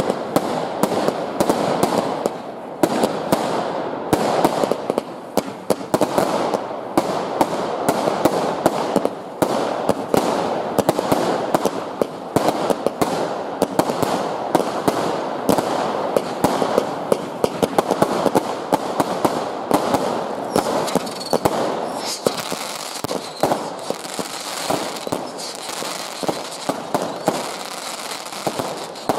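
Consumer fireworks going off in quick succession during a finale: rockets and shells bursting, with a dense, almost unbroken run of sharp bangs and crackling.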